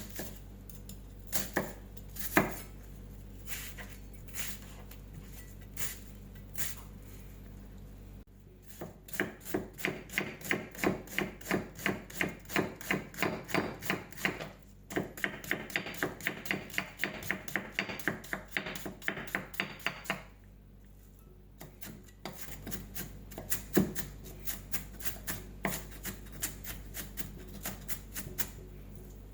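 Kitchen knife chopping onion on a cutting board. A few separate cuts come first, then a fast, even run of chops at about four a second, a short pause, and another run of chops.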